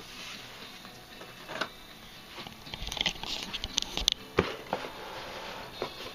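Handling noise from an air rifle and its cardboard box being moved about: a flurry of light clicks and taps about three seconds in, ending in a dull knock.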